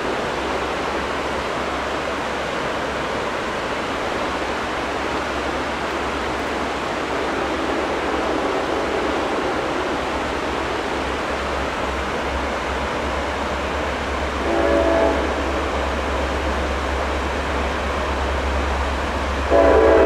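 Steady rushing of river rapids, with a low rumble that grows toward the end. A locomotive horn sounds briefly about three-quarters of the way through, then again, louder, right at the end as the train approaches.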